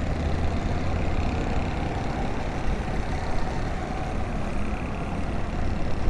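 Steady road traffic noise: motorcycle and car engines running as they pass close by, with a low engine hum strongest in the first second or so.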